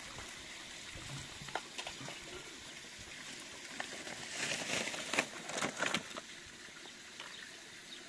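Water trickling, with a run of splashes and knocks about halfway through.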